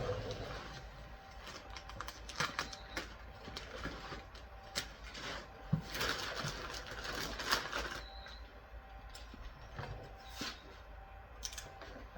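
Handling of a cardboard product box: scattered taps, knocks and scrapes, with a stretch of heavier rustling about halfway through.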